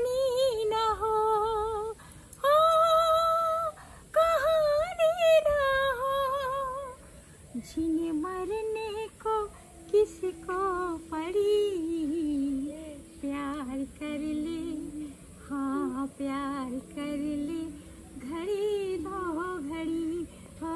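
A woman singing a Hindi song unaccompanied in a high voice with vibrato. From about eight seconds in, a second, lower voice carries the tune on in a softer, humming way.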